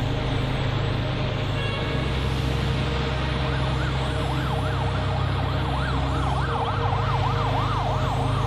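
An emergency vehicle's siren yelping, its pitch sweeping quickly up and down about twice a second, coming in about three seconds in over a steady low rumble.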